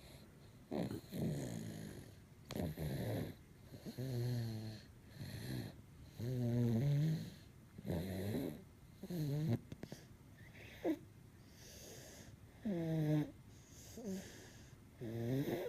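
Heavy snoring from a one-year-old: a steady run of snores, one every second or two, many with a buzzing pitched tone on the breath.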